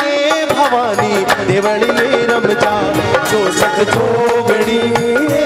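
Live Rajasthani devotional folk music: a harmonium melody over steady dholak drumming.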